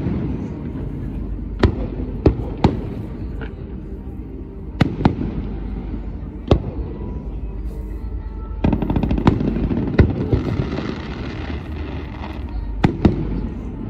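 Aerial firework shells bursting overhead: about ten sharp bangs, some in quick pairs, with a stretch of crackling stars about nine to twelve seconds in.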